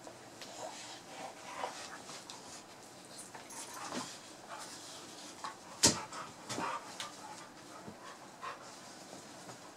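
Two dogs, an English springer spaniel and a German shorthaired pointer, play-wrestling on a fleece dog bed: panting and scattered short scuffling noises, with one sharp knock about six seconds in, the loudest sound.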